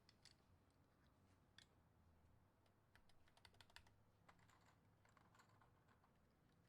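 Faint, irregular clicks of plastic SA-profile keycaps being pressed onto a mechanical keyboard's switch stems, with a quick run of clicks about three to four seconds in.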